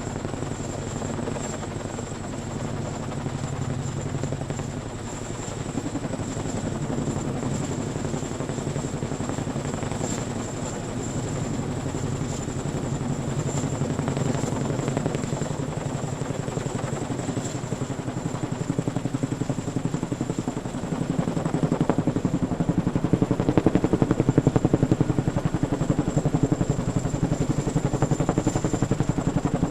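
CH-47 Chinook tandem-rotor helicopter running: a rapid, even rotor chop with a high, steady whine on top. It grows gradually louder, loudest about three-quarters of the way through, then eases off slightly.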